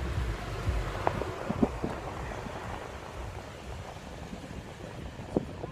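Steady rushing noise of an automatic car wash, heard muffled from inside the car's cabin, slowly fading, with a few faint knocks.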